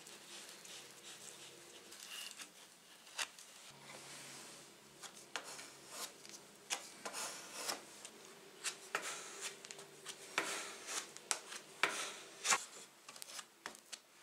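A small plastic spatula scraping and pressing a wood-glue-and-sawdust filler into screw holes on a wooden board: irregular rubbing strokes with frequent sharp clicks and taps.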